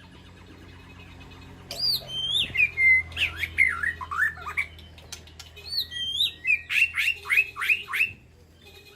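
White-rumped shama singing in two loud phrases of whistled notes, each ending in a run of quick downward-sweeping slurs; the first begins about two seconds in, the second about six seconds in.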